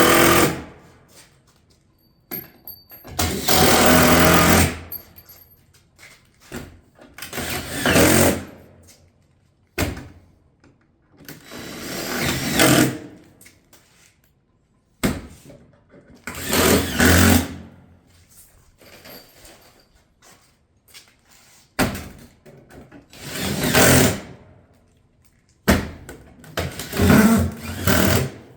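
Power driver driving fasteners through metal roof hip panels: about eight separate runs, each a second or so long, with short sharp clicks between some of them.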